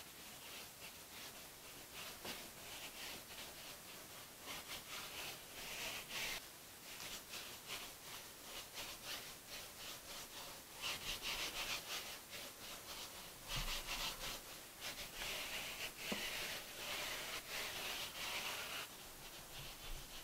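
A wide dyeing brush (hake) swept in quick, repeated strokes across stretched fabric, a rhythmic brushing hiss as the background colour is laid on. The strokes grow louder and come in denser runs about halfway through.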